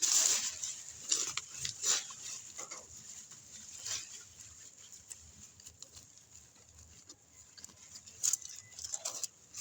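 Irregular rustling and scraping of soil, vines and leaves as sweet potatoes are dug out by hand, loudest in a burst at the start and again about one and two seconds in.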